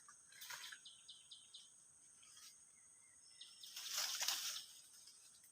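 Outdoor swamp ambience: birds chirping in short runs over a steady high insect drone, with a brief louder rush of noise about four seconds in.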